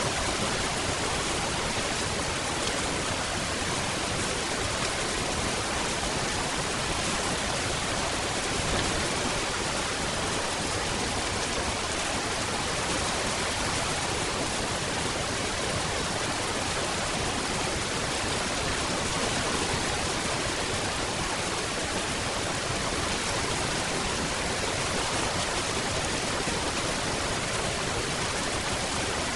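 Steady, even rain, a constant hiss with no single drops, thunder or other sounds standing out.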